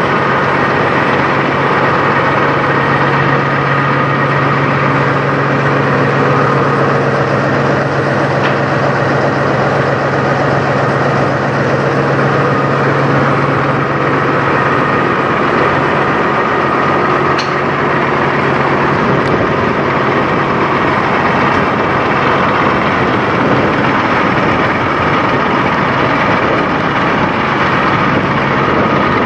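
Peterbilt semi truck's diesel engine idling steadily; its low hum drops away a little past halfway through.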